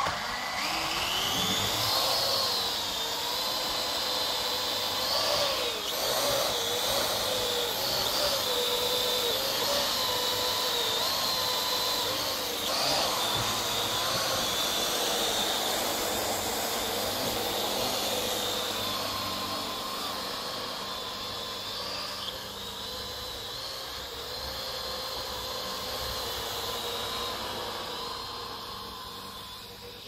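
Parrot AR.Drone quadcopter's four electric motors and propellers spinning up with a rising whine over the first couple of seconds, then running with a steady high whine whose pitch wobbles up and down as the drone is throttled and steered.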